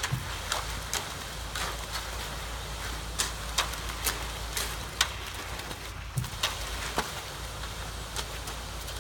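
Concrete pump running with a steady low engine hum while wet concrete is pumped out of the hose and spread, with irregular sharp clicks and knocks throughout.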